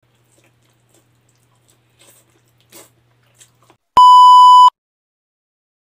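Faint mouth sounds of eating by hand, small smacks and clicks, then about four seconds in a loud, steady electronic beep lasting under a second, cutting off sharply.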